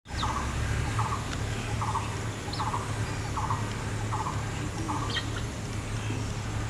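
A bird calling over and over, a short harsh squawk about every 0.8 seconds, about seven times, over a steady low hum.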